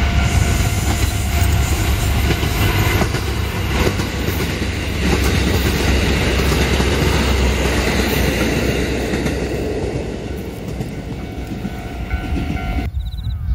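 JR Hokkaido KiHa 183 series diesel limited express train passing close by at speed: a loud, steady rumble of diesel engines and wheels on rail, with some clatter over rail joints. It fades as the train goes, then cuts off abruptly near the end to much quieter ambience.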